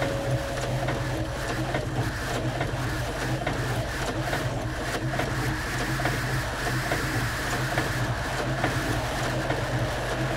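Printing-press machinery running, used as material for an experimental composition: a dense mechanical clatter with scattered clicks over a low pulsing hum. A held musical tone stops about two seconds in.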